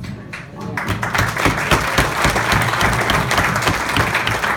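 A roomful of diners applauding. Scattered claps at first swell into full, steady applause about a second in.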